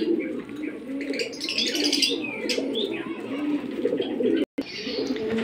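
Domestic pigeons cooing in a wire loft cage: low, rolling coos that go on throughout, with a few higher chirps from other birds about two seconds in.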